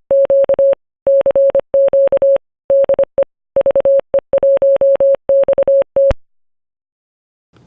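Morse code sent as a steady tone of about 600 Hz, keyed in short dots and longer dashes grouped into characters, stopping with a click about six seconds in.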